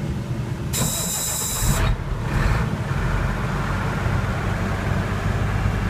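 Cummins 8.3-liter inline-six diesel in a Ford Aeromax truck being started: the starter cranks with a high whine for about a second, then the engine catches and settles into a steady low idle.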